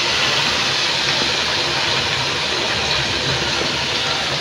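Steady sizzling hiss of an onion-and-garlic paste frying in an aluminium pot as food is spooned into it.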